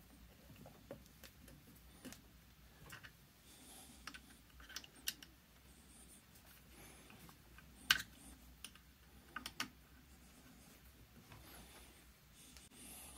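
Faint, scattered light clicks and taps of small screws and metal parts being handled as screws are started by hand into a jet pump cone, the sharpest click about eight seconds in.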